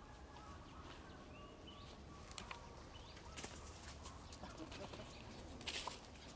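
Quiet outdoor ambience with a few short bird chirps and scattered light clicks, and a brief rustle near the end.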